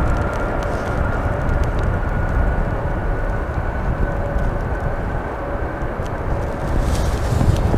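Boeing 747-8F freighter's four GEnx-2B turbofans at takeoff thrust as the jet lifts off: a deep, steady rumble with a thin whine over it. A brief rush of higher hiss comes in near the end.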